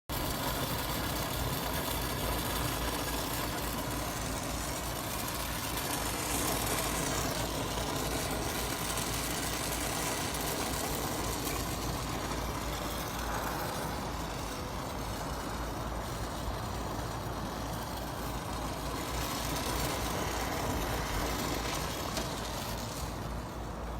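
Steady machine noise, like a motor or engine running, unbroken throughout.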